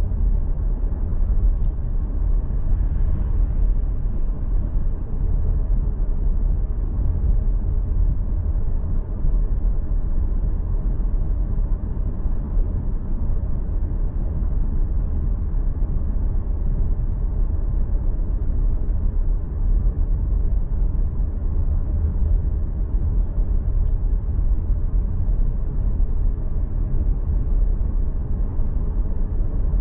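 Steady low rumble of a vehicle driving along a road: tyre and wind noise picked up by a vehicle-mounted action camera's microphone.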